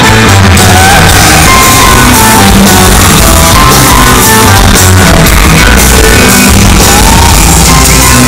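Live folk band playing a chacarera, accordion and guitars over a heavy low end, picked up very loud from the audience.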